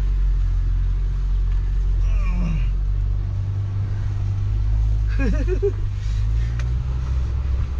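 Mahindra Thar running under way, a steady low engine and road drone while it is driven over slushy, muddy snow.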